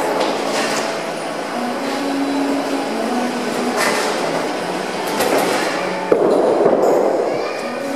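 Bowling alley din: a steady rumble of rolling balls and running pinsetter machinery, broken by several clattering pin and machine impacts, with a sharp knock about six seconds in.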